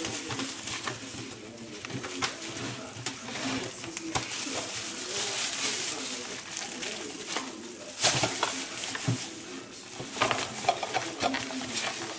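Plastic bin liner rustling and crinkling as it is handled in the bin and gathered up, with a sharp crackle about eight seconds in. A faint low wavering sound runs underneath.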